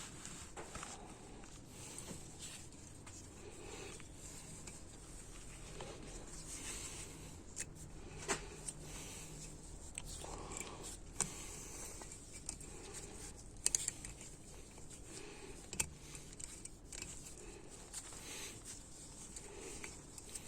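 Faint metallic scraping and handling, with a few sharp clicks scattered through, as a snap ring is worked into its groove with snap ring pliers during an A604/41TE automatic transmission rebuild.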